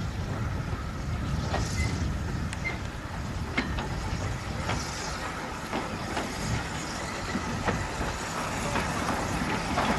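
Andrew Barclay saddle-tank steam locomotive propelling a brake van along the track: a steady rumble with scattered clicks and knocks from the wheels on the rails.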